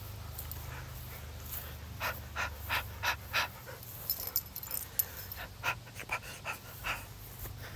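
Black Labrador panting from play with a ball, in quick breaths about three a second, in two runs starting about two seconds in. A few sharp high clicks in the middle.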